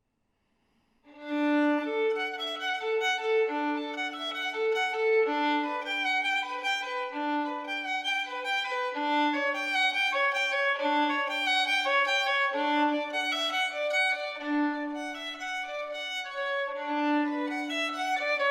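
Background music led by a violin, starting about a second in after a moment of silence, over a repeating low accompaniment figure.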